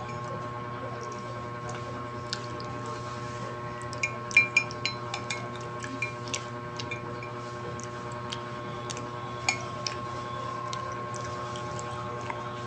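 A metal spoon scraping and tapping against the inside of a ceramic mug of mashed avocado: a scattering of short clinks, thickest from about four to ten seconds in, over a steady background hum.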